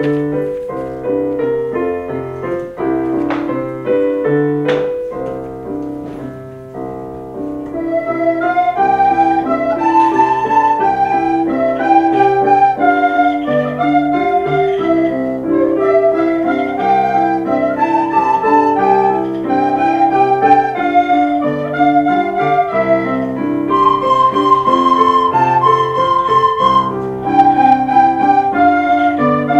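A group of children playing plastic soprano recorders in unison, carrying a melody over a keyboard accompaniment. The accompaniment plays alone at first, and about seven seconds in the recorders come in, louder.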